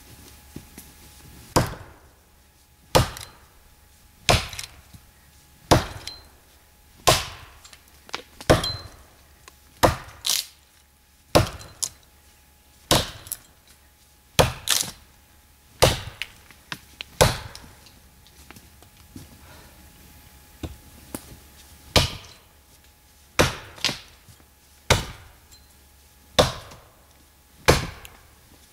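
Condor Woodworker's axe chopping into a tree trunk during felling: about twenty sharp wooden strikes at a steady pace, roughly one every second and a half.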